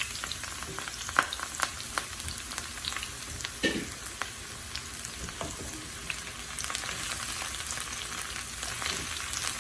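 Sliced brinjal (eggplant) pieces sizzling in hot oil in a pan, a steady hiss with scattered crackles and an occasional click of a utensil.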